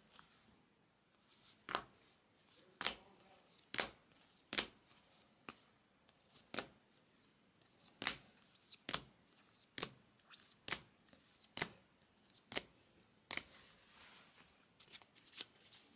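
Hard plastic trading card holders clicking against each other as a stack of cased cards is handled one at a time. There are about fifteen sharp, separate clicks, roughly one a second.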